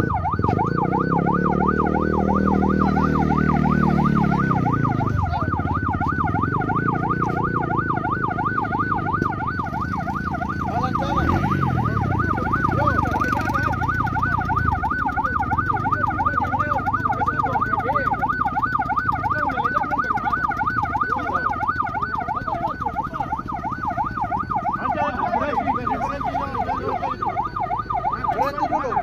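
Emergency vehicle siren sounding continuously with a fast warble, several rises and falls a second. A lower pitched droning swells up and falls away in the first few seconds.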